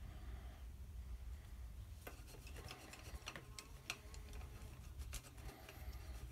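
A paintbrush working on paper: faint scratchy rubbing strokes with scattered light clicks, starting about two seconds in, over a low steady hum.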